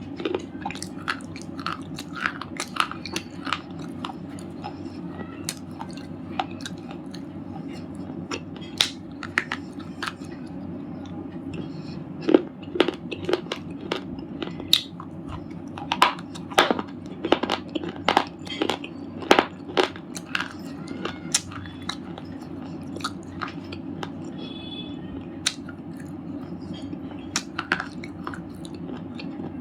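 Red slate chips being bitten and chewed: many sharp, irregular crunches, coming thickest in the middle of the stretch.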